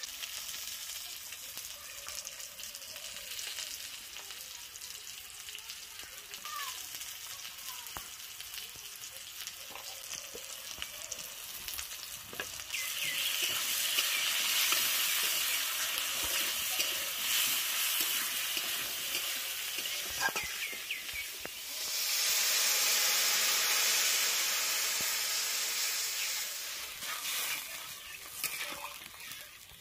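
Pumpkin pieces frying in oil in a kadai, sizzling, with a metal spatula scraping as they are stirred. About 22 seconds in, liquid goes into the hot pan and the sizzle jumps louder and higher. It then dies down near the end.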